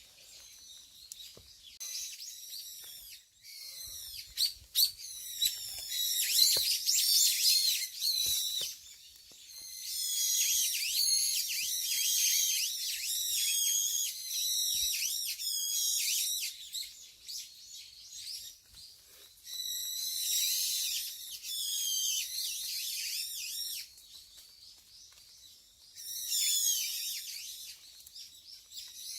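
Small songbirds chirping and twittering: rapid high whistled notes that slide up and down, coming in bursts of a few seconds with short quieter gaps between them.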